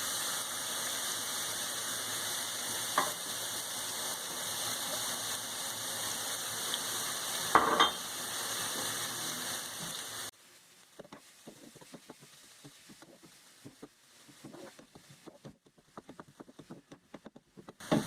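Chopped onion sizzling in hot oil in a frying pan, with a couple of sharp knocks of the stirring utensil against the pan. About ten seconds in the sizzle cuts off abruptly, leaving faint scattered clicks and crackles.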